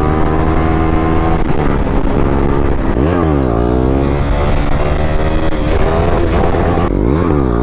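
Sports motorcycle engine running hard while being ridden, its revs dipping and climbing back about three seconds in and again near the end.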